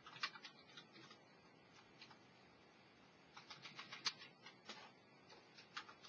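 Near silence with faint, irregular small clicks and taps, coming in a quick cluster around the middle and again near the end.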